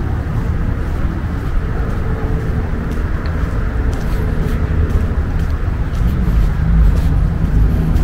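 Steady low rumble of city traffic, with a faint engine-like hum running through it.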